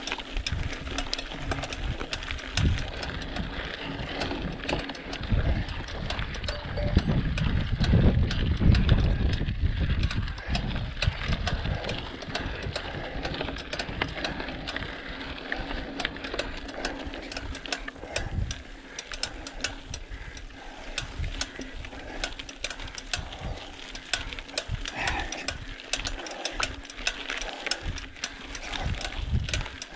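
Mountain bike descending a rocky trail, the bike rattling and clattering over stones with many sharp clicks. A low rumble swells between about six and eleven seconds in.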